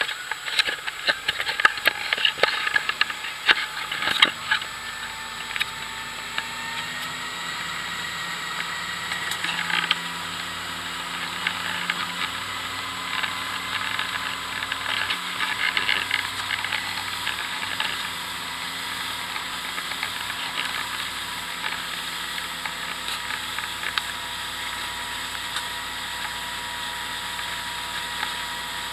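Motorboat under way at speed: steady engine and rushing wake noise, with a burst of rapid rattling knocks during the first four seconds or so that then settles into an even run.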